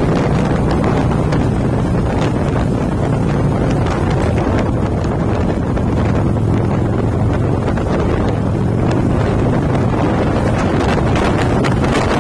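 Heavy wind rush on the microphone of a moving motorcycle, steady throughout, with the low drone of the bike's engine underneath.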